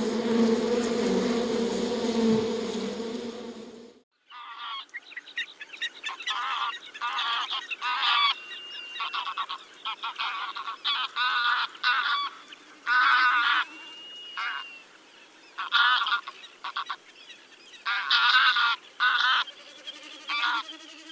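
A steady buzz that cuts off about four seconds in, followed by birds calling: many short, repeated calls, several overlapping at a time.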